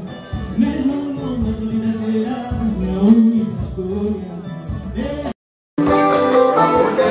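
Live band music: a man singing with acoustic guitars and drums. It breaks off about five seconds in, and after a moment of silence different band music starts.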